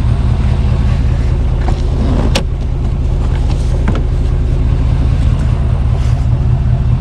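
A vehicle engine idling with a steady low rumble, and a single sharp click about two and a half seconds in.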